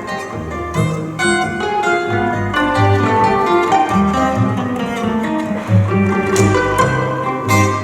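Instrumental passage by a small jazz string trio: quick guitar lines over a plucked double bass walking underneath, with violin.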